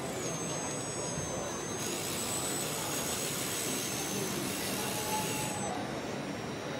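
Radio-controlled scale model Deutz-Fahr AgroPrima tractor driving: a thin high electric-drive whine, with a hissing rush from about two seconds in until shortly before the end while it moves off across the wood chips, over a steady background din.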